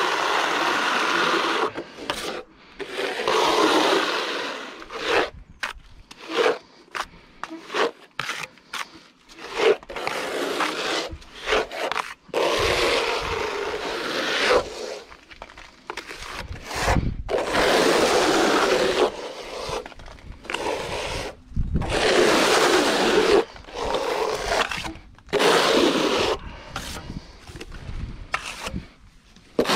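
Render being worked onto a wall with a trowel: repeated scraping strokes, each about one to two seconds long, with short breaks between them.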